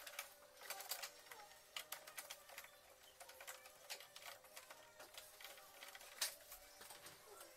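Faint irregular small clicks and ticks of a screwdriver driving the two screws that hold the lamp holder in a Eumig R2000 film projector, metal tool on small metal parts; one sharper click about six seconds in.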